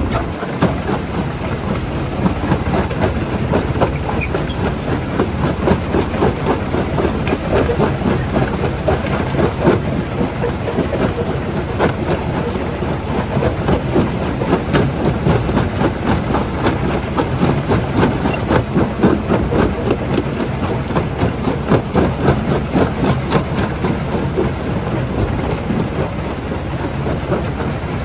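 Primary jaw crusher running with rock going through it: a steady heavy mechanical rumble with dense, irregular knocks and rattles of stone being broken.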